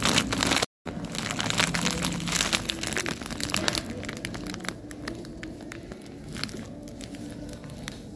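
Plastic Fini Deli Jelly candy bag crinkling as it is handled and turned over in the hand. The crinkling is dense for the first few seconds, then turns to sparser, fainter crackles.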